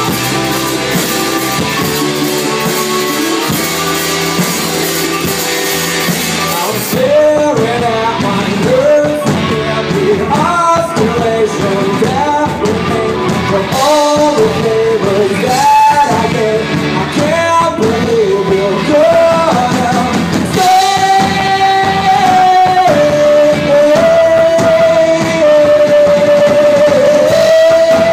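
Rock music with guitar: a dense instrumental passage, then about 7 seconds in a sung or lead melody enters with sliding pitch, ending in long held notes.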